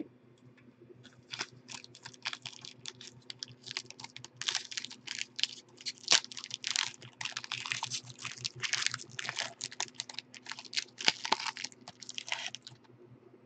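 Silver foil wrapper of a trading-card pack being peeled and torn open by hand: dense, irregular crinkling and crackling that starts about a second in and stops shortly before the end.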